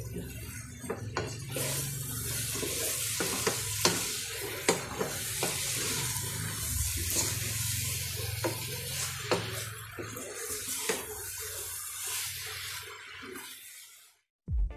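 Miki egg noodles with chicken and vegetables sizzling in a pan while being stirred and tossed with a cooking spoon, with frequent clicks and knocks of the spoon against the pan over a low steady hum. The sound fades out near the end.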